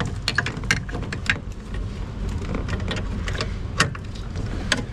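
Irregular sharp clicks and taps of a hand driver and bit working against the metal of a van's steering column while fitting an ignition switch screw, over a steady low rumble.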